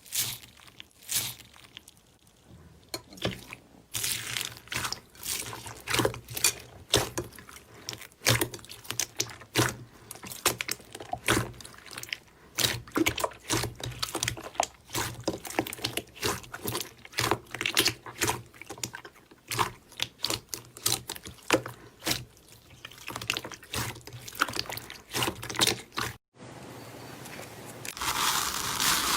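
Slime being squeezed and pulled by hand: a long irregular run of sharp, sticky clicks and pops. About 26 seconds in it cuts to a denser, steadier crackling.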